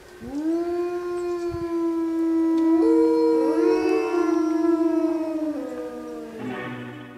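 Wolf howling: one long, steady howl rising in at the start, joined by a second, higher howl about three seconds in, the two overlapping and then dropping away near the end.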